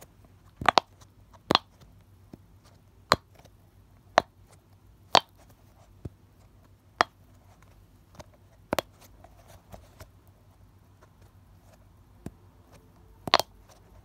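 Silicone push-pop fidget ball squeezed by hand, its bubbles popping in and out with sharp pops about once a second, unevenly spaced, around ten in all. The loudest are a double pop about a second in and another just before the end.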